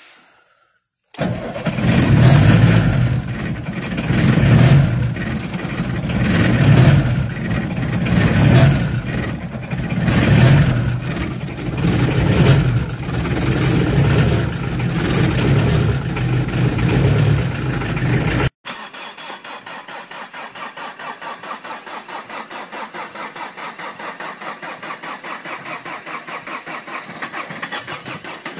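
Cold start of an IFA Multicar M25's diesel engine at −16 °C: loud and uneven, surging about every two seconds. About two-thirds of the way through it cuts off abruptly to a quieter, steady, rhythmic engine sound from an Audi A4 B5 1.9 TDI diesel starting at −18 °C without glow plugs.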